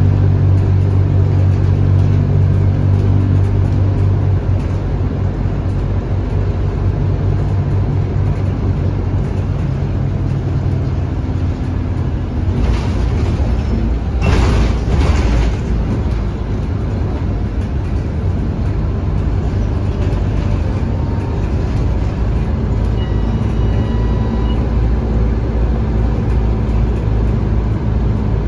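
Scania K230UB bus, heard from inside the cabin while driving: its 8.9-litre five-cylinder DC9 diesel with ZF Ecomat automatic gives a strong low engine drone for the first few seconds. The drone then eases into a steadier low rumble of engine and road noise. Brief bursts of hiss come twice near the middle.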